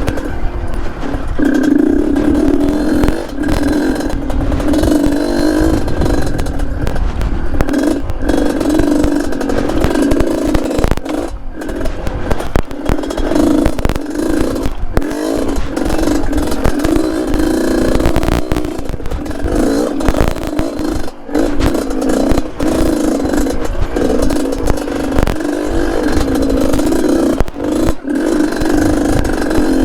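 Yamaha DT trail bike with an RX-King two-stroke single-cylinder engine, running under load over rocky ground. The engine note rises and falls with the throttle, and knocks and scrapes from stones and the bike's frame clatter throughout.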